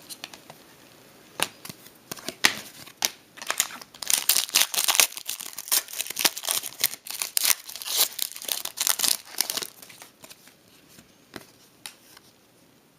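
Crinkling and rustling of trading-card pack wrappers and cards being handled, a quick run of sharp rustles and clicks that is busiest from about four to ten seconds in.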